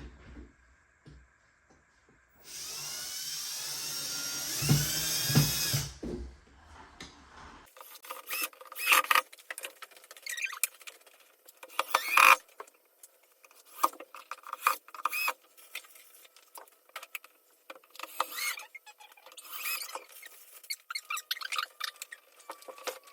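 Cordless drill driving a screw into the wall for a blind mounting hook: the motor runs for about three and a half seconds with its whine rising in pitch. After that come scattered light clicks and knocks of hardware being handled.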